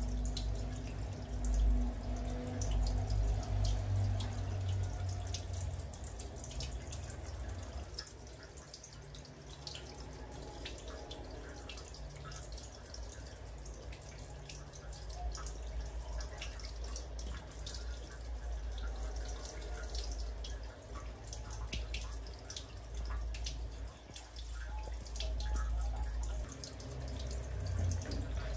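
Handheld shower head running, its spray pattering and dripping onto a small monkey's fur, a plastic stool and tiled floor and wall, with the echo of a small tiled bathroom.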